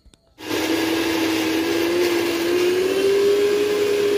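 Electric mixer grinder switched on about half a second in and running steadily, its motor hum rising slightly in pitch as it speeds up. It is grinding a dry spice mix of ginger, garlic, chillies, whole spices and soaked peanuts with no water added.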